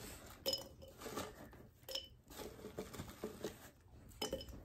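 Small Valentine candies dropped one at a time into a glass jar, making a few faint, scattered clinks and taps.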